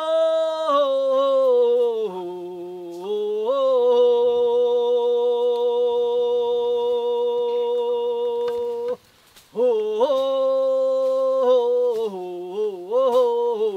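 A chanting voice holding long notes that slide up and down in pitch: one note held steady for about five seconds, a short pause for breath about nine seconds in, then a wavering phrase.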